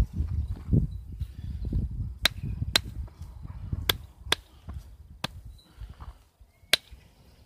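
Flintknapping: a hafted hammer striking obsidian, giving about six sharp, unevenly spaced clicks from about two seconds in as flakes are knocked off, over a low rustle of handling at the start.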